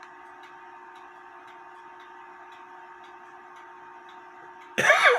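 A mechanical clock ticking steadily over a faint steady hum. Near the end a person clears their throat loudly.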